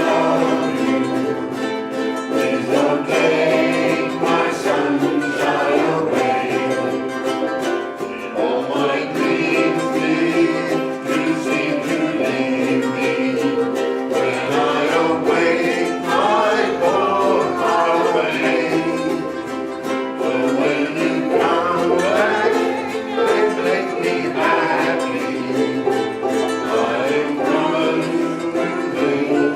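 A small group singing a song together to strummed string instruments, in a steady rhythm.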